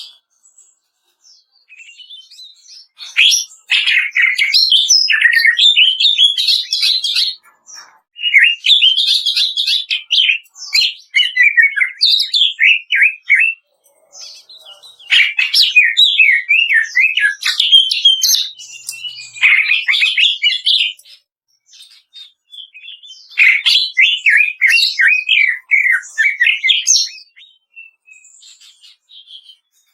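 Green leafbird (cucak ijo) song: four long runs of rapid, chattering high notes, each a few seconds long, with short pauses between them.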